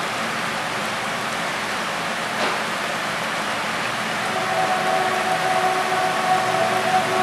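Heavy rain pouring steadily, an even hiss. About four seconds in, a steady droning tone joins it.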